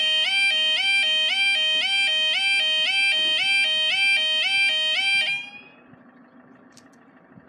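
UK level crossing audible warning alarm, a two-tone warble stepping up and down about twice a second, sounding as the barriers lower. It cuts off suddenly about five seconds in, once the barriers are down.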